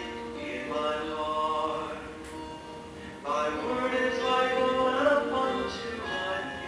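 A man singing a slow song with instrumental accompaniment, in two phrases with a short break near the middle.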